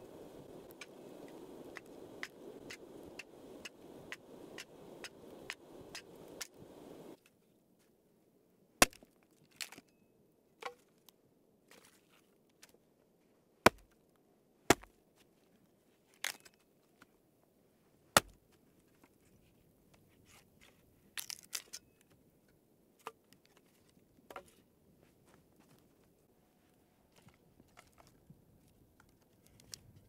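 Axe chopping wood: single sharp strikes one to several seconds apart, a few much heavier than the rest. Before them a steady rustling hiss with faint ticks cuts off suddenly about seven seconds in.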